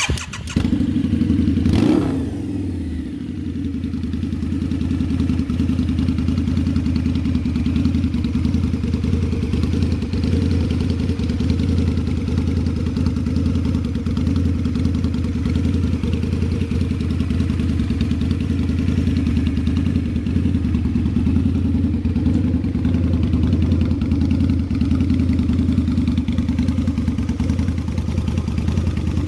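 Harley-Davidson V-Rod Night Rod's liquid-cooled V-twin starting up, with a brief rise in revs that falls away about two seconds in, then idling steadily.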